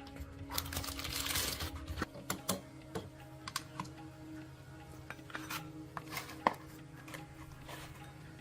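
Light, irregular clicks and clinks of small metal parts and hand tools being handled during engine work, over a steady faint hum.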